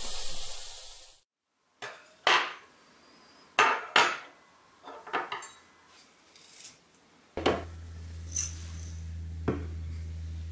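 Mackerel fillets sizzling in oil and butter in a frying pan, cutting off just after a second in. Then a string of sharp clinks and knocks as cutlery and glassware are set down on a wooden table, with a steady low hum starting about seven seconds in.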